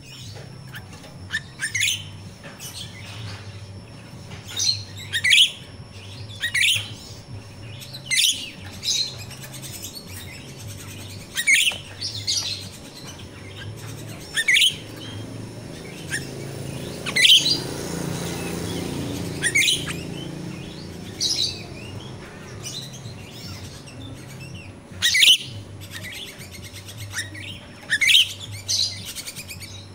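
Grosbeak starling (finch-billed myna, jalak Rio-Rio) giving short, sharp, high chirps every second or two, many of them quick falling sweeps. A low rushing noise swells and fades about halfway through.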